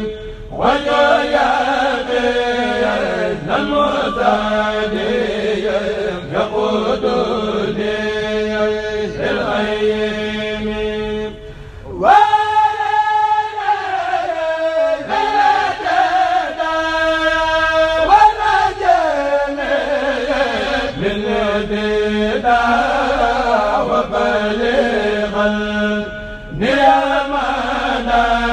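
Amplified Sufi khassida chanting by a Senegalese kourel: unaccompanied voices singing long, held, ornamented phrases into a microphone. There is a brief break about eleven seconds in, then a loud high held note.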